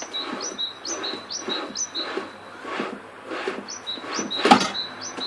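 Homemade wooden drill press worked up and down by its handle: the sliding wooden carriage and pivots squeak at each stroke, a quick falling squeak and a steady high one in turn, over a dry rubbing of wood on wood. The strokes pause briefly near the middle, and a sharp wooden knock comes about four and a half seconds in.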